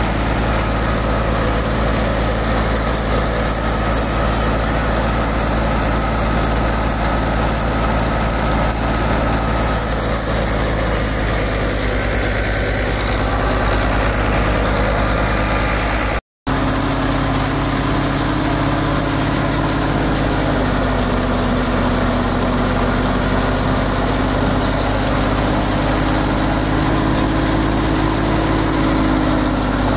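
Fiat 640 tractor's four-cylinder diesel engine running steadily. It cuts out briefly about halfway through; after that a steady tone in the sound sags a little in pitch and comes back up near the end.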